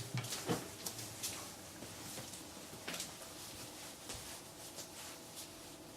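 A few faint, scattered clicks and rustles over quiet room tone, thinning out toward the end.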